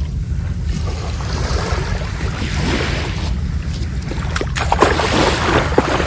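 Sea waves washing up on a sandy beach, the hiss of the surf swelling in the middle and again near the end, over a steady low rumble of wind on the microphone.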